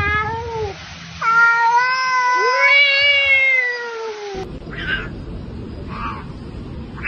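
Cat meowing: a short meow falling in pitch, then one long drawn-out yowl of about three seconds that cuts off suddenly.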